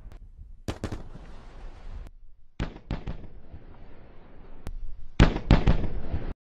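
Sonic booms from a Falcon 9 first stage coming back to land: sharp cracks in three groups, a pair about a second in, several more near three seconds, and the loudest cluster about five seconds in, after which the sound cuts off abruptly.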